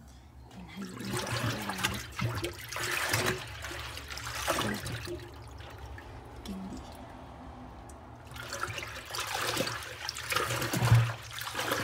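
Water running and splashing in a top-loading automatic washing machine's tub, with a low steady hum underneath. The splashing swells louder in the first few seconds and again near the end.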